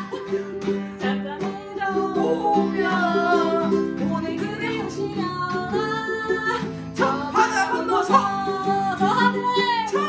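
Ukulele and steel-string acoustic guitar strummed together, with a woman singing a Korean folk-song melody and a man's voice joining in near the end.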